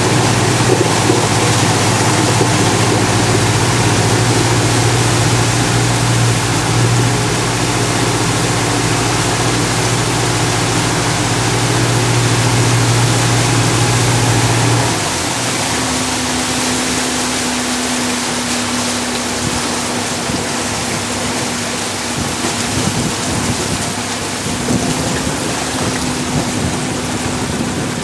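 Cruise boat's engine running steadily under a constant rushing hiss of wind and water. About halfway through the deep engine hum stops and a lighter, higher engine tone carries on.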